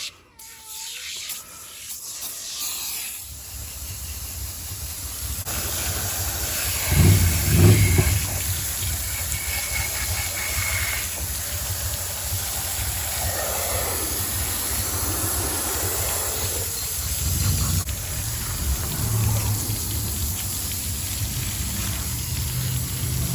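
Water spray rinsing degreaser off old chainsaw parts: a steady hissing jet that builds up over the first few seconds, briefly louder and deeper about seven seconds in.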